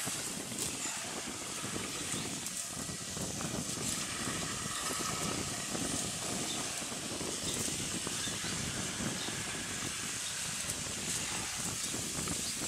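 Beach ambience: a steady hiss of wind and small waves washing on the sand, with gusty low rumble from wind on the microphone.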